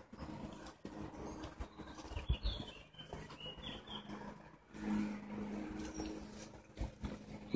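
Footsteps on a dirt forest path with uneven knocks from the hand-held camera, and a few short bird chirps about two to four seconds in. A low hum comes and goes underneath.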